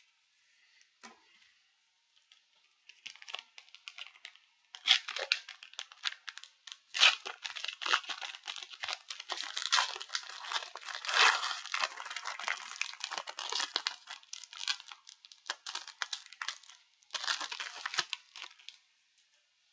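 Foil trading-card booster pack wrapper being torn open and crinkled in the hands: a dense run of crackling that starts a few seconds in, with a last burst near the end.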